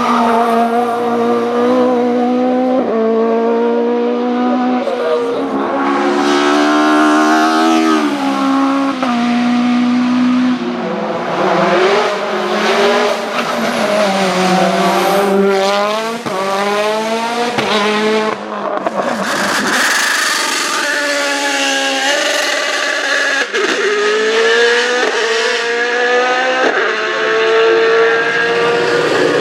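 Hillclimb race car engine at high revs, repeatedly climbing in pitch and dropping back at each gear change, with falling pitch as it slows for corners; some tire squeal.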